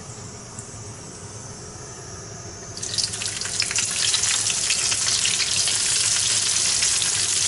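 Chopped onion dropped into hot oil in a kazan sets off a loud crackling sizzle about three seconds in, which then carries on steadily. Before that there is only a faint hiss from the heated pot.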